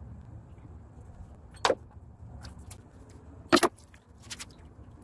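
Metal clunks from a stripped Chrysler Pentastar 3.6L V6 being rotated upside down on an engine stand: two loud knocks about two seconds apart, with a few lighter clicks, over a low steady hum.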